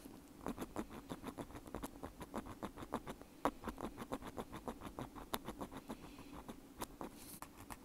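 Bamboo ear pick scratching against a wired earbud held right at the microphone: a dry kari-kari scratching made of many quick strokes, several a second, with a few sharper scrapes now and then.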